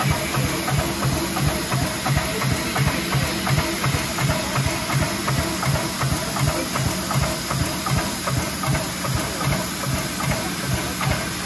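Standing steam locomotive 477.013 (ČSD class 477.0 'Papoušek') hissing steam, over a steady quick beat of about four pulses a second from its steam-driven air pump working.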